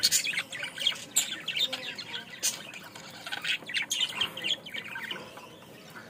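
A flock of budgerigars chattering: a busy run of many short chirps and squawks overlapping one another, thinning out near the end.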